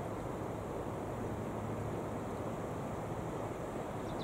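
Wind buffeting the microphone over the steady rush of a rough sea.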